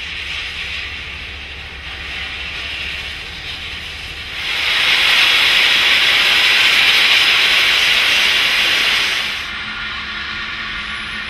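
Ballast hopper wagons unloading: a loud steady hiss starts suddenly about four seconds in and cuts off about five seconds later, over a quieter steady noise from the train.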